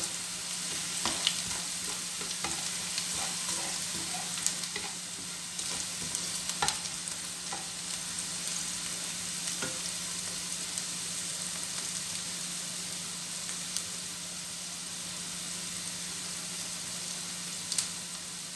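Chopped onion and garlic sizzling in hot oil in a stainless steel frying pan, being sautéed until brown. For the first several seconds a spatula scrapes and taps against the pan; after that the frying goes on alone with scattered crackles over a steady low hum.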